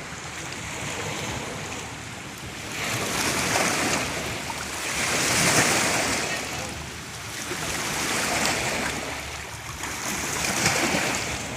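Lake waves breaking and washing on the shore, swelling and falling in surges every two to three seconds, the loudest about five to six seconds in.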